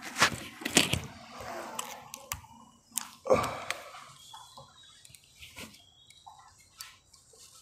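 Scattered small clicks, taps and soft rustling from hands and small tools working on a phone's circuit board. The loudest knock comes about three seconds in.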